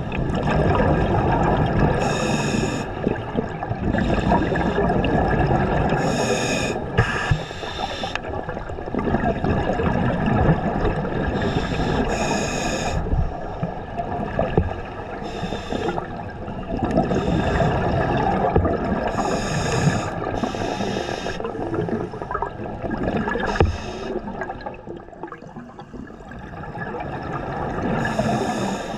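A scuba diver breathing through a regulator, heard underwater. Each inhalation is a short hissing rush, coming every few seconds, and the exhaled air bubbles and gurgles continuously in between.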